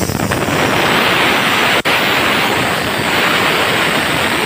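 Compressed air hissing out of a freight wagon's air-brake distributor valve as its handle is worked, venting the brake. A loud, steady hiss that starts sharply, with one momentary break about two seconds in.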